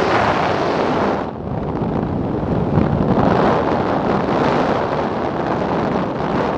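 Wind rushing over a parachutist's camera microphone during descent under an open canopy: a loud, steady rush that dips briefly a little over a second in.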